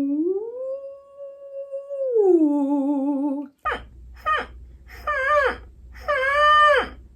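A woman's voice making wordless vocal-exercise noises: a soft hum-like tone slides up, holds, then slides back down and wavers with vibrato. After a short break comes a run of bright, whiny cries, short ones and then two longer ones, each dropping in pitch at its end, like a dog's whimper or howl.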